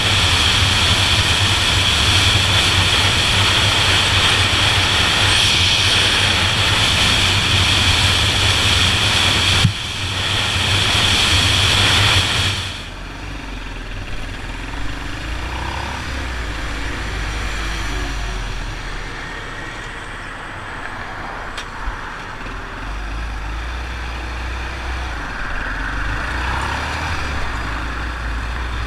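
1976 Honda XL175's single-cylinder four-stroke engine running while the motorcycle is ridden, with heavy wind noise over the microphone. About thirteen seconds in, the noise drops suddenly and the engine runs quieter, with low rumbling and a slightly wavering pitch.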